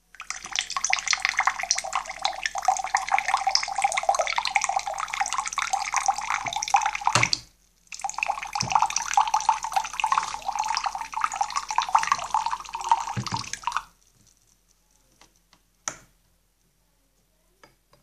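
Water running from the plastic tap of a large drink dispenser and splashing into a glass, in two pours of about seven and six seconds with a short break between. A single click near the end.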